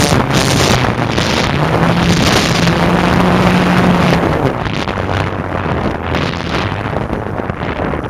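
Electric motor and propeller of a Parkzone F4U Corsair RC model plane running, with wind rushing hard over the onboard camera's microphone. About halfway through the motor's pitch drops as the throttle eases, and the sound grows gradually quieter.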